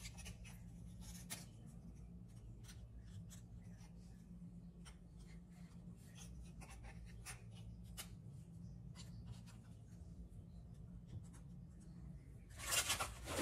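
Faint crisp snaps and scratchy crumbling of Marie biscuits being broken by hand and pressed into a soft cream layer, with a louder crackle near the end, over a low steady hum.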